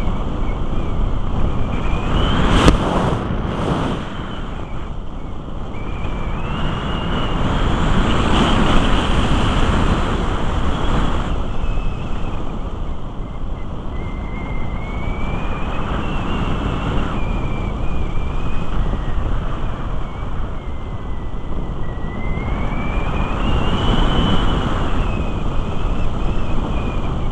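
Airflow rushing over an onboard camera on a Musger MG12a model glider in flight. A high whine slowly rises and falls in pitch over it, and a brief rough gust of noise comes about three seconds in.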